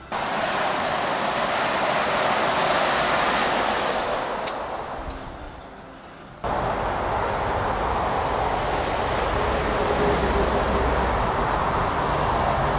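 Road traffic on a dual carriageway: an even rush of tyre noise that starts abruptly, swells and then fades away, and returns just as abruptly about six and a half seconds in, with more low rumble.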